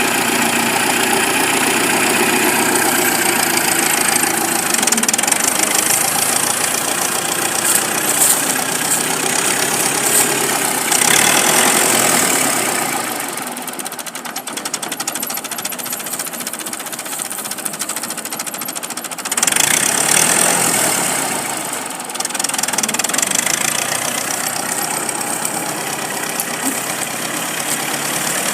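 Small chainsaw engine running hard and revving, easing to quieter running for several seconds about halfway through, then revving up again.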